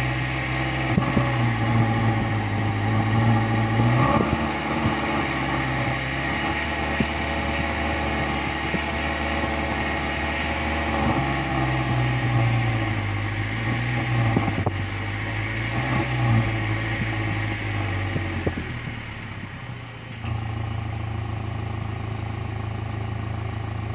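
Car engine heard up close at the exhaust pipe, running while the car stands still. The engine speed rises and falls several times, dips briefly near the end, then settles to a steady note.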